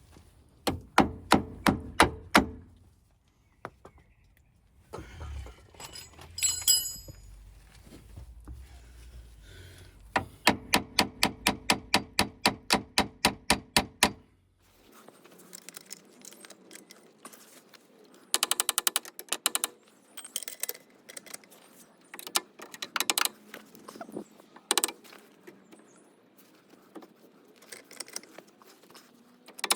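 Steel being struck hard with a hammer in quick runs of ringing blows, about four a second, during work on a car's front suspension. Later come short bursts of rapid metallic clatter.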